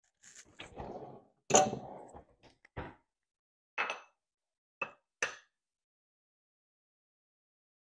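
An egg cracked on the rim of a bowl and separated, with one sharp knock about one and a half seconds in among shell and dish clinks. A few lighter clinks follow.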